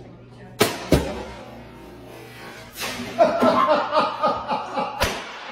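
Two sharp pops about a third of a second apart, then people laughing in quick bursts, with a third pop near the end.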